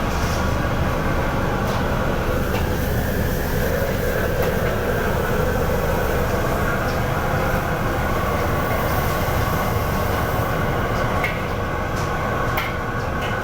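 Steady loud rumble of a wok station, from the gas burner and extraction, with a few sharp clicks near the end.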